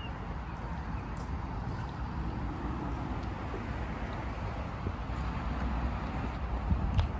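Steady outdoor street ambience: a low, even hum of distant road traffic, with a few faint clicks.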